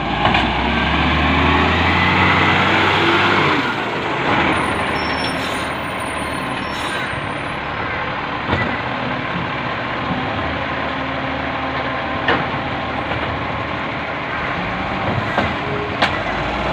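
Side-loading garbage truck running at the kerb while its automated arm grabs, lifts and tips a wheelie bin into the hopper. A loud hiss over the first few seconds, then steady running with a few sharp knocks.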